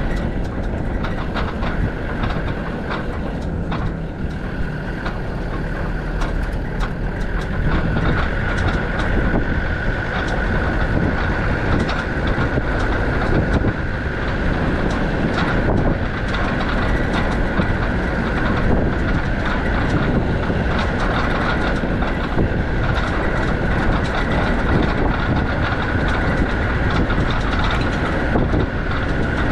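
Land Rover Defender 90's TD5 five-cylinder turbodiesel running under way on a rough dirt track, with tyres crunching over stones and the body rattling over the bumps. A steady high whine runs over the rumble.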